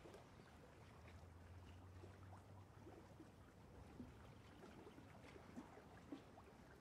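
Very faint strokes of a small brush dabbing and dragging acrylic paint on canvas, with a few soft ticks. Otherwise close to near silence.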